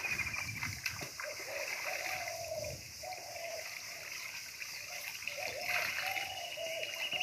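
Water splashing and sloshing as a wet cloth is dunked and lifted in a pond, with water running and dripping off the cloth back into the water.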